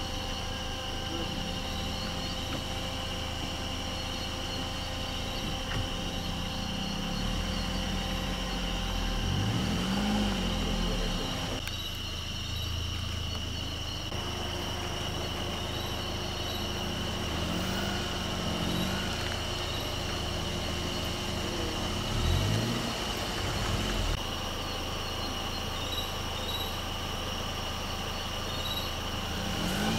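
Vehicle engine idling steadily, its revs rising and falling a few times, over a steady high-pitched drone.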